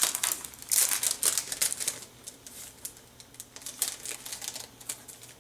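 Clear plastic craft packaging being handled: cellophane crinkling with quick light plastic clicks and ticks. The clicks come thick in the first two seconds, then thin out.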